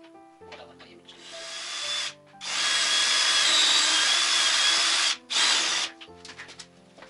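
Power drill running in three goes: a short run that builds up about a second in, a long steady run of about three seconds with a high motor whine, and a brief final burst.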